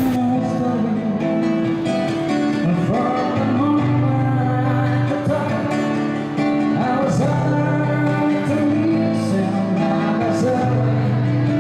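Singing to an acoustic guitar.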